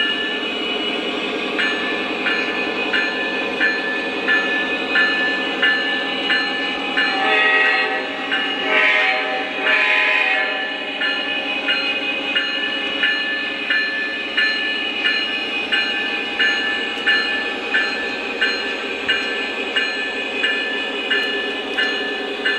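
Model diesel locomotive sound system: the bell ringing steadily, about two strokes a second, over the diesel engine's steady running sound, with a horn blast of about three seconds near the middle.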